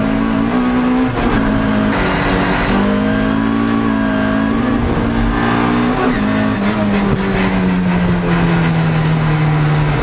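Toyota MR2 AW11 rallycross car's engine heard from inside the cockpit, driven hard: its pitch steps up and down several times with gear changes and throttle, then holds one long, slowly falling note for the last few seconds.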